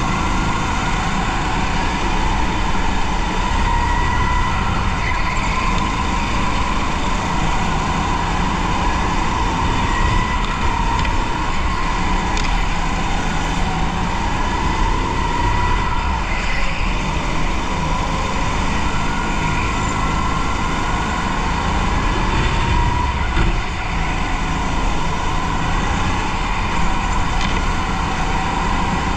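Racing kart driven flat out on an indoor track, heard from on board: its drive note holds steady in level and wavers up and down in pitch with speed through the corners, over a heavy low rumble.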